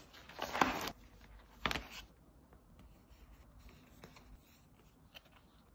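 Paper sticker sheets rustling as small round stickers are handled, in a few brief bursts over the first two seconds. After that come faint rubbing and light taps as the stickers are pressed onto a paper notebook page.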